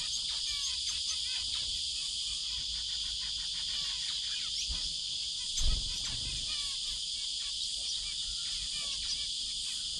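Cicadas keep up a steady, high-pitched chorus, with the short chirps and calls of small finches, including zebra finches, over it. A brief low thump comes a little past halfway.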